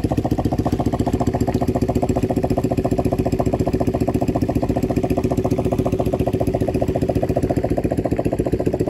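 A fishing boat's small engine running steadily with a quick, even putter.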